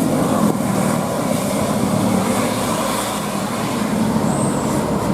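Heavy vehicle, likely a passing bus, giving a steady engine and tyre noise on the road, with no horn sounding.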